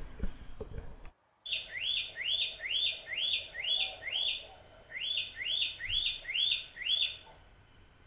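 Broad-billed flycatcher calling: a run of six clear, upward-sweeping notes, a short pause, then five more, about two notes a second.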